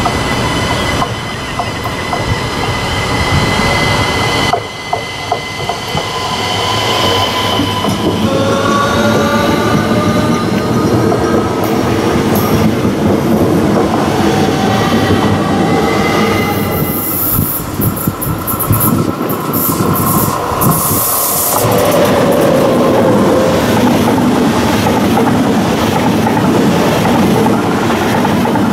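A Siemens Desiro ML electric multiple unit approaches and passes close by. Its traction motors whine in several tones that slide in pitch over the rolling noise of its wheels on the rails. About three quarters of the way through, an ICE high-speed train takes over with a steadier rolling rumble.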